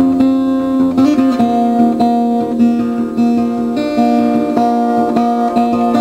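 Background music: acoustic guitar, plucked notes ringing over held chords.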